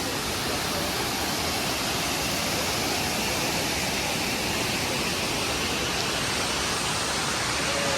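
Waterfall: the steady rush of falling water, even and unbroken.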